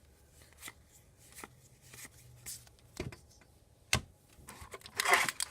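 Trading cards being flipped and slid past one another in the hand: soft irregular ticks, two sharper taps about three and four seconds in, and a short rustle near the end.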